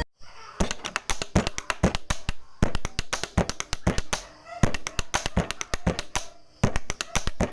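Rapid, uneven tapping and clicking on hard everyday objects, several sharp taps a second with a few short pauses, as in a found-object percussion piece.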